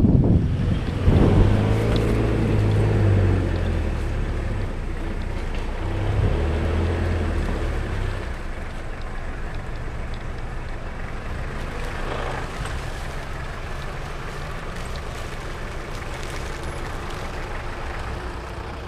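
Off-road 4x4 engine running as the vehicle drives slowly along a muddy dirt track, with wind buffeting the microphone at the very start. The engine hum swells twice in the first eight seconds, then settles to a steadier, lower drone.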